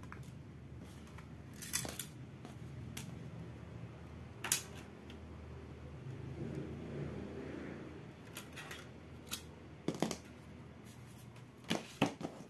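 A series of sharp plastic clicks and snaps with handling rustle between, the loudest about four and a half seconds in: the snap-fit clips of a screwless tablet's back cover letting go as it is pried off by hand, then the parts handled.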